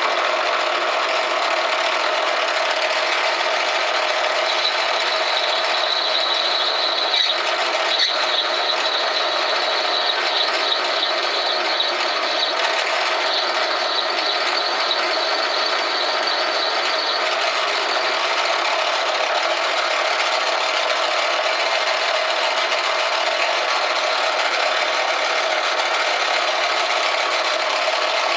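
Small metal lathe running steadily, turning a brass workpiece while a cutter takes a back taper on it. A higher-pitched tone sits over the run from about four seconds in until about seventeen seconds in.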